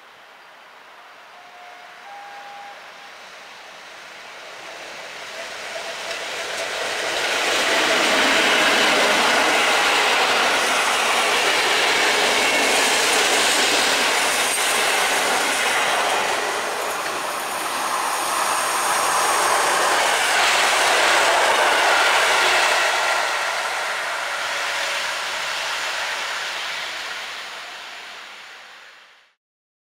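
Train of passenger coaches hauled by an EU07 electric locomotive passing close by. The rumble and clatter of wheels on rail swell over several seconds, stay loud for about fifteen seconds with some wheel squeal, then die away. The sound cuts off suddenly just before the end.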